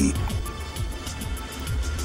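Background music with a steady low bass.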